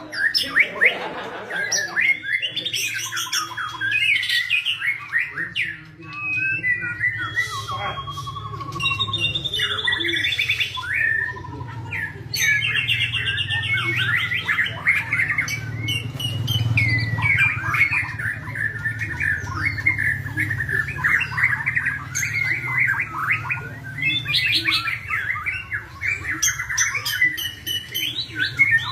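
White-rumped shama (murai batu) singing a long, varied song of rapid chirps, trills and whistled phrases, over a steady low hum.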